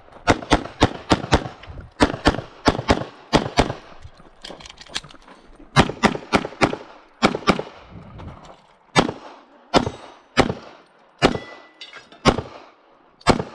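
Pistol shots fired in quick pairs and short strings during a practical-shooting stage, with brief pauses between strings; toward the end the shots come singly, roughly a second apart.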